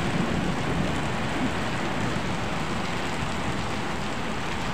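Heavy rain pouring steadily onto wet concrete paths and grass, an even hiss of downpour.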